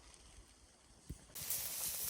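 A soft thump about a second in, then a loud sizzling hiss starts abruptly: hot dogs cooking over a campfire.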